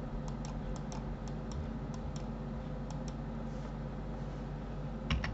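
Light clicks of a computer mouse and keyboard, a dozen or so, mostly in quick pairs, with a louder pair near the end. A steady low electrical hum runs underneath.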